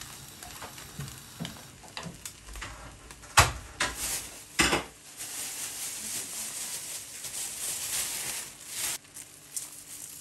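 A spatula stirring potato and shredded chicken filling in a wok, with small scrapes early and three loud knocks of the spatula on the pan between about three and a half and five seconds in, then steady sizzling for about four seconds as the filling fries.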